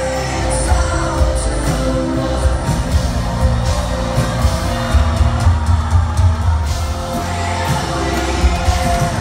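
Live rock band playing a song with drums, bass, electric guitar and keyboard, and a lead voice singing over it, heard loud from within a concert audience.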